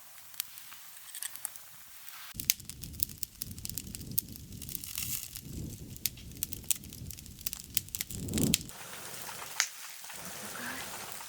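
Wood campfire crackling, with scattered sharp pops and snaps. From about two seconds in until near the end, a louder low rushing, rustling noise sits under the crackle, then stops suddenly.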